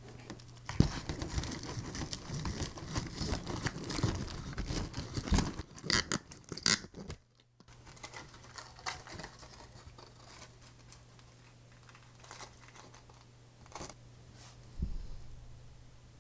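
Close-miked eating of a crisp fried breaded pork cutlet: dense crunching and crackling for the first five seconds. After a short gap it turns to sparse soft clicks and chewing, with a single thump near the end.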